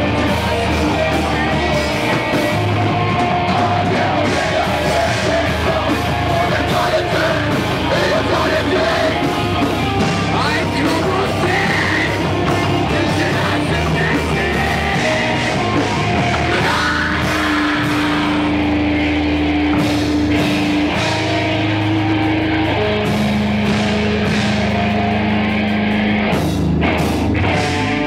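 Metalcore band playing live: drums, bass guitar and electric guitar under a singer's vocals. About two-thirds of the way in, the dense sound thins to long held notes over the drums.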